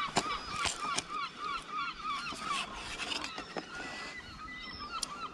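Birds calling continuously, many short rising-and-falling calls several a second overlapping one another, with a few sharp clicks about a second in and near the end.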